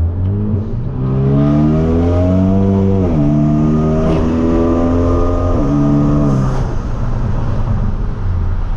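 Hyundai Veloster Turbo's tuned, full-bolt-on turbocharged four-cylinder accelerating hard through the gears, its exhaust note climbing in pitch and dropping at two upshifts, about three seconds and five and a half seconds in, then easing off near the end.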